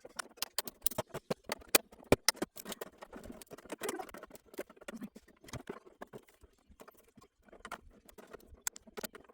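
Rapid, irregular sharp clicks and taps of small hard objects being handled.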